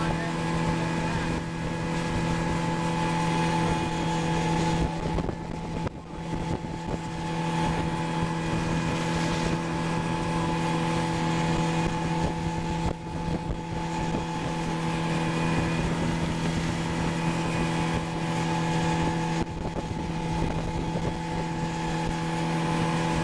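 Tow boat's engine running steadily at speed, a constant drone under the hiss of wind and water spray, with wind buffeting the microphone.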